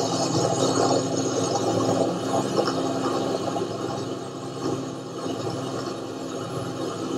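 Aircraft engines droning steadily, a low continuous hum with a noisy roar over it, slowly growing quieter.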